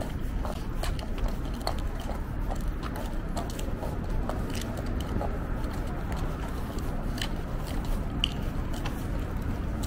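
City street sounds heard on foot: a steady low rumble with many irregular small clicks and scuffs, footsteps on a winter pavement.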